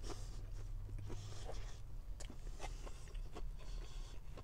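A person chewing a mouthful of meat pie with crisp pastry: small scattered mouth clicks and crunches over a low steady hum.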